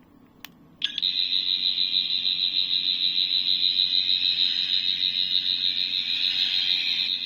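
Toy sonic screwdriver (Character Options 14th Doctor) playing its standard-setting sound effect: a click about half a second in, then a steady high-pitched electronic whirr with a fast warble from its small speaker.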